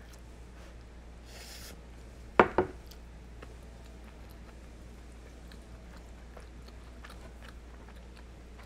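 Quiet chewing of food with faint small clicks of chopsticks, broken about two and a half seconds in by two sharp knocks of tableware in quick succession.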